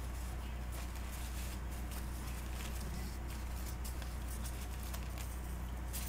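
Steady low electrical hum with faint hiss and a few soft clicks: the background noise of the call audio while nobody speaks.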